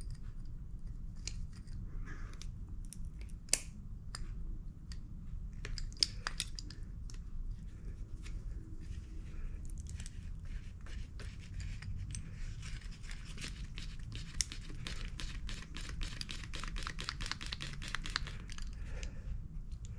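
Light clicks, scrapes and rattles of a Honda GCV160 carburetor and its linkage being twisted by hand to work a hardened fuel line off its fitting. A quicker run of ticks comes in the second half, over a steady low hum.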